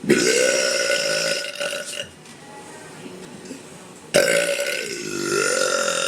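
A woman burping on purpose: two long burps, each starting suddenly. The first holds a steady pitch for about two seconds. The second starts about four seconds in and carries on, its pitch sagging in the middle and rising again.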